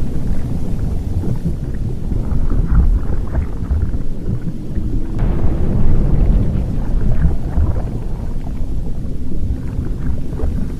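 Volcanic eruption rumbling deep and continuously, swelling and easing, with faint crackles and pops over the rumble.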